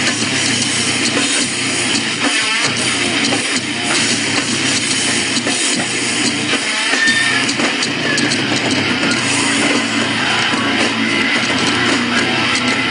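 Loud rock music with distorted electric guitar and a drum kit.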